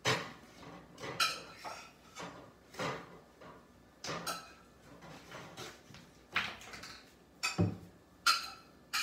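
Dishes and utensils being handled in a kitchen: separate clinks and knocks about every second, each with a short ring, one duller and lower knock near the end.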